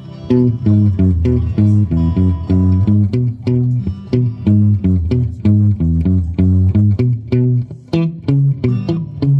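Fender Player Series Stratocaster electric guitar playing a steady riff of single picked notes low on the neck, about three notes a second.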